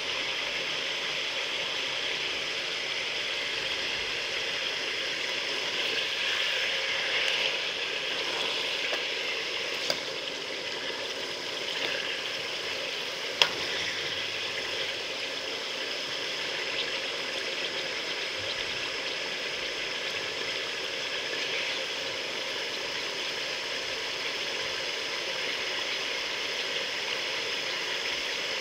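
Chicken pieces frying in oil in a metal pan, a steady sizzle throughout, with two sharp clicks about ten and thirteen seconds in.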